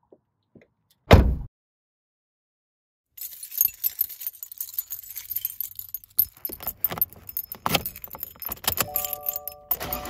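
A car door shuts with one heavy thud. A few seconds later a bunch of car keys jangles and clicks as a key is worked into the ignition lock, and a short steady electronic chime sounds just before the end.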